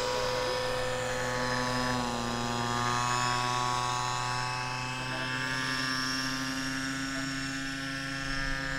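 Small engine of a radio-controlled model autogyro running steadily in flight, its pitch dipping briefly about two seconds in and then holding.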